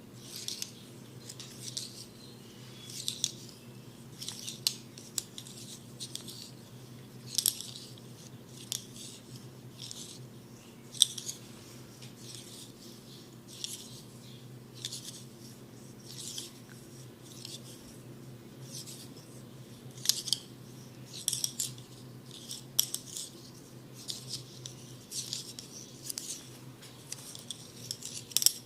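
Crisp, short snipping strokes close to the microphone, coming irregularly about once a second, the sharpest about eleven seconds in, over a steady low hum.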